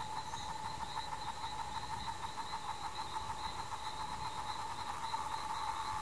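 A steady chorus of calling animals: a lower and a higher drone that throb several times a second and grow a little louder near the end.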